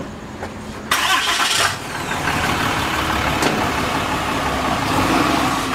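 A truck's engine starts about a second in and then keeps running steadily.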